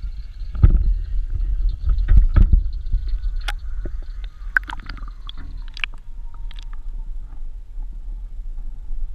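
Water sloshing and gurgling against a GoPro camera housing as it is pushed into shallow floodwater, with heavy knocks in the first few seconds and sharp clicks after. Once the camera is under the water, the sound turns quieter and thinner.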